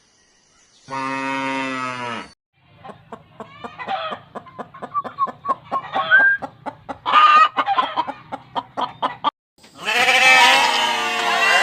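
Chickens clucking in a rapid string of short clucks for most of the stretch, after a short, low drawn-out call about a second in. A loud, wavering bleating call starts near the end.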